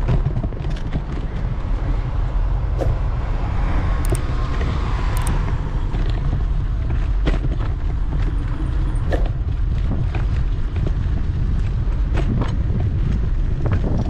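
Wind buffeting the microphone of a handlebar-mounted action camera on a moving electric scooter, with scattered knocks and rattles as the scooter rolls over the sidewalk's concrete seams.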